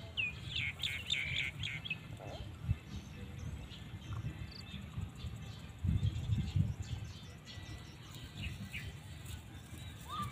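Small birds chirping in a quick cluster of short high calls in the first two seconds, with fainter scattered chirps later. A low rumble rises about six seconds in.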